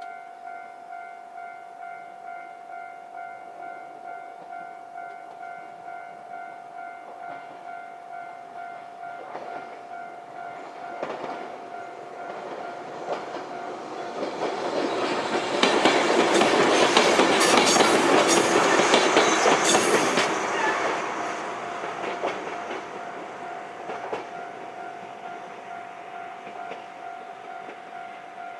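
A Japanese level crossing's electronic warning bell rings in a steady repeating ding, about two a second, and stops right at the end. Meanwhile a 103 series 3500 subseries electric train approaches, passes over the crossing with its wheels clattering over the rail joints, loudest in the middle, and fades away.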